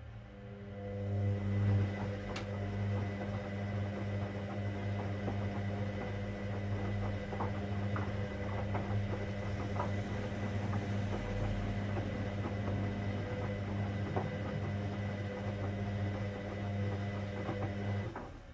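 Hoover Dynamic Next washing machine running with a steady low hum and a few light knocks. The hum stops shortly before the end.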